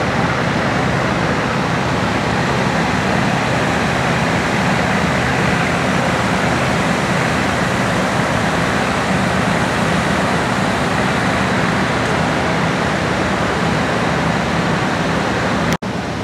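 Several fire engines pumping water at a drafting display: their engines drone steadily under load beneath the constant rush of water jets from the deck guns.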